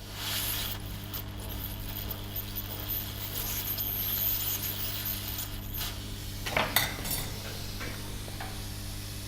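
Hot-air rework gun blowing with a steady high hiss for about six seconds, heating the board near the blown backlight filter, then a few sharp metallic clinks of tweezers or tools on the board, over a steady low electrical hum.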